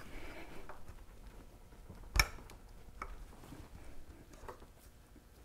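Small metal clicks of hand tools pushing down the springs of a Hurst four-speed shifter in its assembly jig. There is one sharp click about two seconds in, then a smaller one and a few faint ones.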